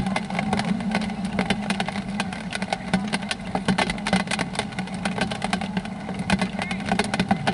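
Rain falling on umbrellas close by: dense, irregular sharp taps of drops on the fabric, over a steady low hum.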